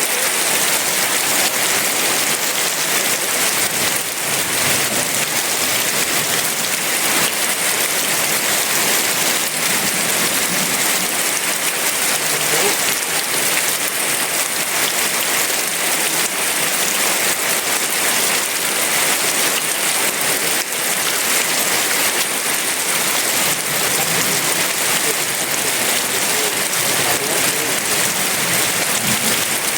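Heavy rain falling steadily, an even, dense hiss of drops with no break or change.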